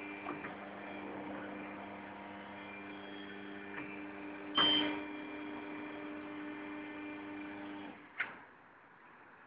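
Snap-on Quadriga automatic tyre changer running as it mounts a tyre onto an alloy rim: a steady motor hum with one loud clunk about halfway through. The hum stops about 8 seconds in, followed by a single short click.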